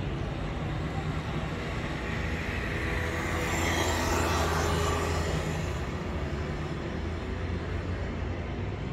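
Steady low street rumble, with a motor scooter passing close, getting louder and fading again about three to six seconds in.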